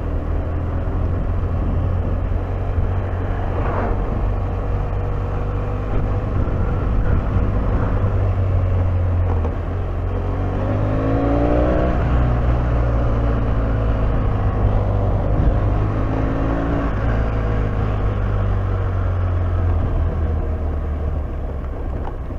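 BMW F800R's parallel-twin engine running under way. Its note climbs twice, around the middle and again about three quarters through, as the bike is ridden on.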